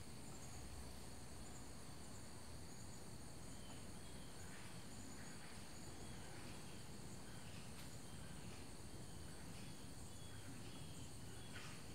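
Quiet outdoor ambience: a steady faint hiss, with faint short high chirps repeating irregularly from about four seconds in.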